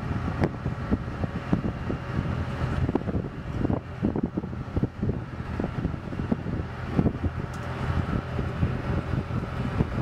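Ultra Heavy-Lift Amphibious Connector prototype crawling on its tracks of big flotation pads: a steady low engine drone with irregular clunks and knocks from the pads, several a second.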